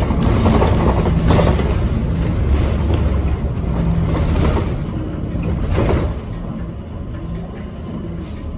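A 2012 NABI Metro 45C CNG transit bus's Cummins Westport L9N engine running, with road noise, as heard from inside the bus. It gets quieter about six seconds in.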